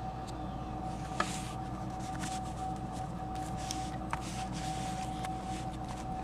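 Small clicks and light rubbing from a handheld camcorder being turned over in the hand, with the loudest click about a second in and another about four seconds in, over a steady electrical hum with a faint whine.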